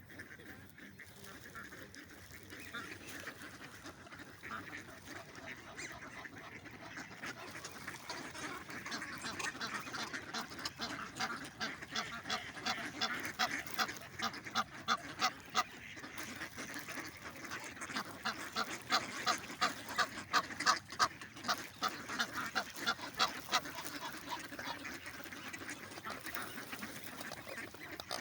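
A flock of ducks and geese honking and quacking. Scattered calls build about eight seconds in to a fast, dense run of repeated honks, loudest a little past the middle, then thin out near the end.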